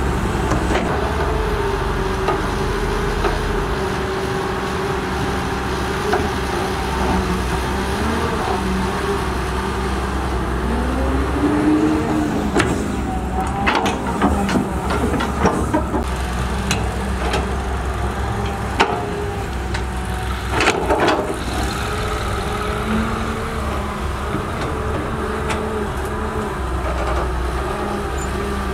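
CAT 320D hydraulic excavator's diesel engine running under digging load, its note rising and wavering about halfway through as the hydraulics work. Several clanks and knocks of the steel bucket on the mud and rock come between about 13 and 16 seconds in, and again a little after 20 seconds.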